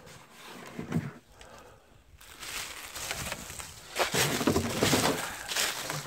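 Footsteps crunching and rustling through thick dry fallen leaves. There is a single knock about a second in, then the steps grow louder and faster in the second half.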